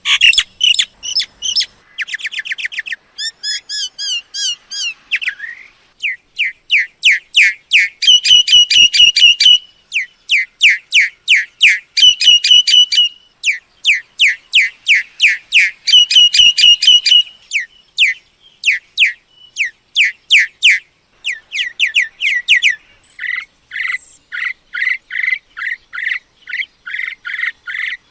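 Mynas calling: rapid series of loud, high whistled and chattering notes, one series after another with short pauses between them, as in a playback recording used to lure mynas. Toward the end the notes drop somewhat lower in pitch.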